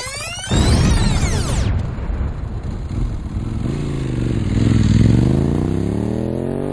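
Motorcycle engine revving, used as a sound effect behind a logo animation. It opens with sweeping whooshes over a loud low rumble; the engine's pitch dips about four seconds in, then rises steadily as it revs up near the end.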